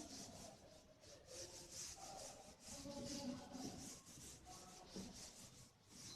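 Faint scratching of handwriting: a quick series of short strokes as an equation is written out.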